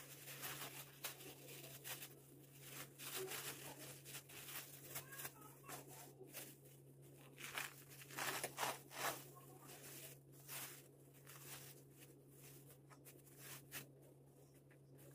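Thin plastic bags and plastic gloves crinkling and rustling in irregular bursts as sheets of Iranian flatbread are handled and torn, over a steady low hum.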